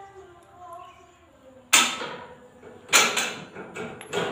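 Two loud, sharp impact noises about a second apart, each dying away over about half a second, with a smaller one near the end, over faint background music.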